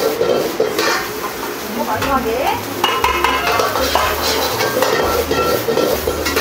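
Fried rice with vegetables sizzling in a wok while a metal ladle scrapes and clanks against the pan as it is stirred and tossed.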